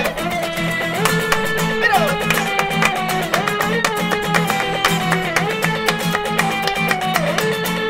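Acoustic guitars strumming a flamenco-rumba rhythm with hand clapping (palmas) in time. A held lead melody slides between notes over them.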